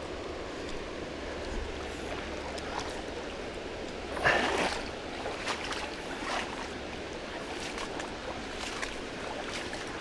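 Swift river current rushing steadily over rocks, with a brief louder burst of noise about four seconds in and a few light clicks.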